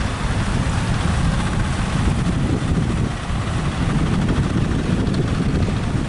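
Strong wind rumbling on the microphone over the steady wash of surf breaking on the beach.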